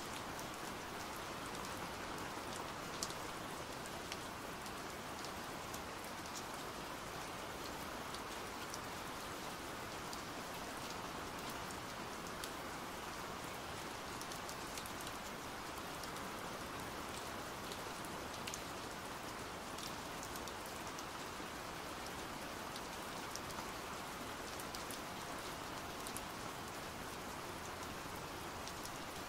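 Pouring rain, a steady even hiss with scattered sharp ticks of individual drops.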